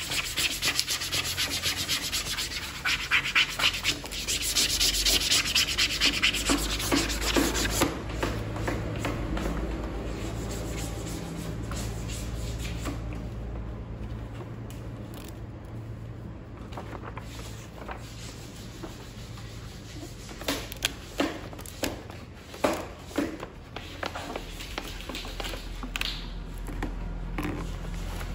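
Adhesive-backed reinforcing film being rubbed and pressed flat onto a foam wing, with fast rubbing strokes for the first several seconds. After that it goes quieter, with a few sharp crackles of the paper backing being handled and peeled near the end.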